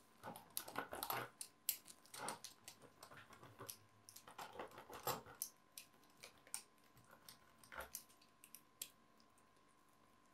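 Pizza cutter wheel rolling through a baked pizza: faint, irregular crunches and clicks as it cuts through the crust, with a few louder strokes.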